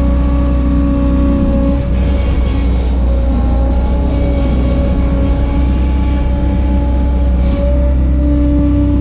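1988 Bobcat 743 skid steer running under load, engine and hydraulics giving a steady drone. Its pitch drops slightly about two seconds in and rises back near the end as the load changes.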